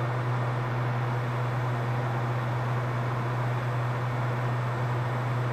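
Hot air rework station blowing steadily: an even rush of air with a low hum, heating the solder in a BGA reballing stencil to form new balls on the chip.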